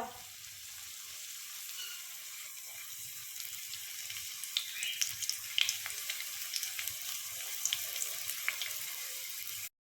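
Samosas deep-frying in hot oil: a steady sizzle with scattered pops and crackles, stopping abruptly just before the end.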